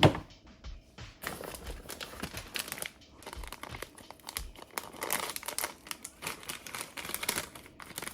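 Snack packaging being handled and opened by hand: irregular crinkling and rustling with some tearing, starting about a second in.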